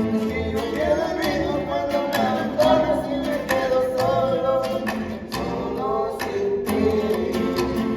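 A string ensemble playing, with strummed guitars keeping a steady rhythm under a sustained melody line that wavers in vibrato.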